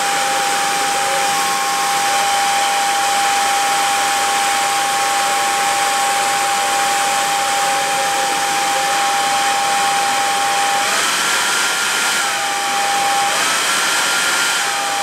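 T3 Cura Luxe hair dryer running with a steady rush of air and a high motor whine. Twice near the end the whine steps up in pitch, holds, and drops back as the setting is changed; the higher settings are louder.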